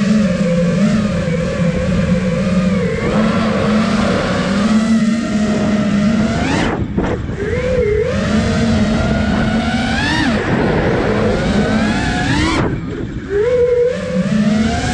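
Motors and propellers of a 5-inch freestyle FPV quadcopter whining in flight, the pitch rising and falling with the throttle, with sharp upward sweeps at about six and a half, ten and twelve and a half seconds as the drone punches out, each dropping away after.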